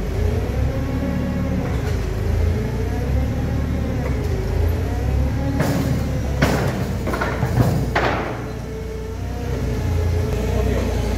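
Forklift engine running with its pitch slowly rising and falling as it manoeuvres under load. Between about six and eight seconds in come several sharp metal clanks from the steel staircase it is setting in place.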